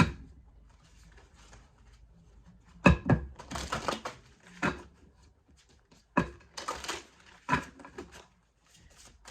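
A deck of tarot cards being shuffled by hand, with four sharp taps or slaps of the cards, each one or two seconds apart, some followed by a brief papery riffle.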